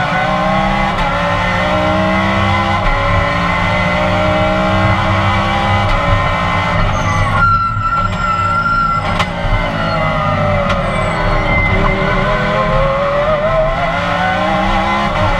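Race car engine heard from inside the cockpit, pulling hard through the gears: its pitch climbs and drops back at each quick upshift. About seven and a half seconds in, the engine note drops away briefly as the driver lifts off, then it picks up again and climbs steadily in pitch.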